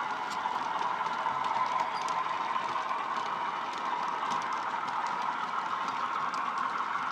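Model railway box wagons rolling past on the track: a steady rolling rattle with many small clicks from wheels and rail joints. The Class 37's sound-decoder engine note carries on faintly behind it.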